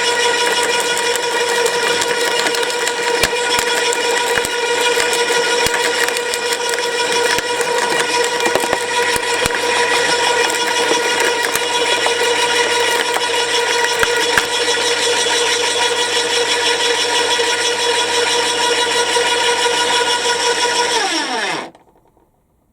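Flymo electric garden shredder running at full speed with a steady high whine, scattered sharp cracks as twigs are fed through the cutter. About 21 seconds in it is switched off and the motor winds down, its pitch falling until it stops.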